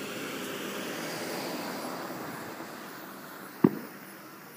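A car passing close by, its engine and tyre noise swelling and then fading away, followed by one sharp bang about three and a half seconds in.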